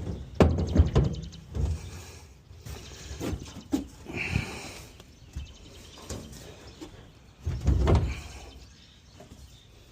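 Thumps and scrapes of a truck toolbox being set down and shifted into place on a pickup's bed, the loudest knocks just after the start and again about 8 seconds in.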